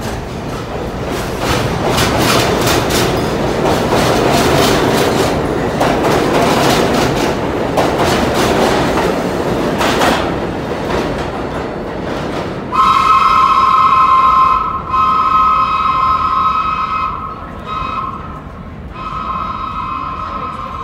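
Budd R32 subway train running out of the station, its wheels clattering over the rail joints with a rushing noise that fades as it goes. About 13 seconds in, a two-tone subway train horn sounds in several long blasts with short breaks.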